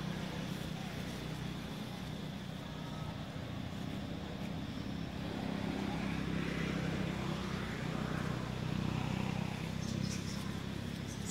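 A steady low engine drone, like a motor vehicle running nearby.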